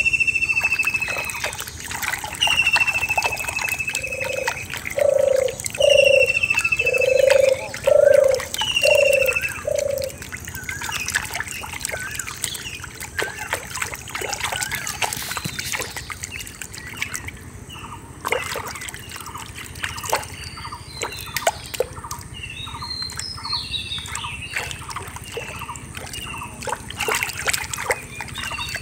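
A hand sloshing and stirring in a shallow muddy water hole, with small splashes and trickling throughout. Birds call over it. In the first ten seconds there is a high, falling whistle four times and a louder run of six low hooting notes, then scattered chirps.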